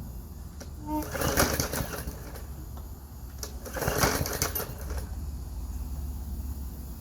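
Gas push lawn mower engine running with a steady low rumble, surging louder twice, about a second in and again about four seconds in.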